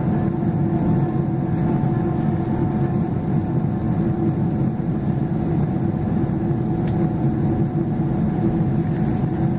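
Steady cabin drone inside a Boeing 777-200LR in flight: GE90 engine noise and airflow heard through the fuselage as a constant low rumble with a faint steady hum.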